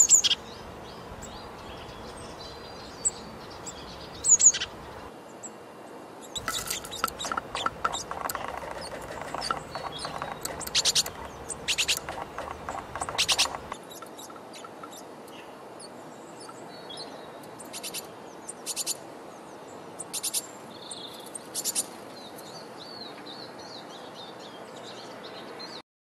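Small garden songbirds chirping and calling: short, high calls scattered throughout, with runs of rapid calls in the middle and a few separate calls near the end.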